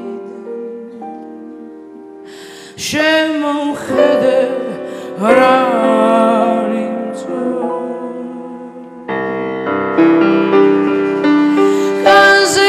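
A woman singing a slow ballad with grand piano accompaniment. Her voice comes in about three seconds in with long, wavering held notes. From about nine seconds the piano plays on alone, fuller and louder.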